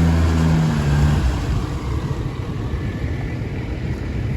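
An engine running with a steady low hum that drops away a little over a second in, leaving a rough rumbling noise.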